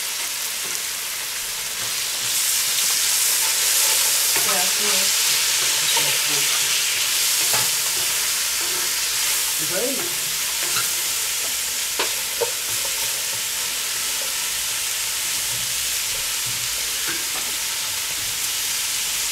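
Diced vegetables sizzling in a hot cast-iron Dutch oven as they are stirred, the sizzle swelling louder about two seconds in and then settling to a steady hiss. There are a couple of sharp clicks a little past the middle.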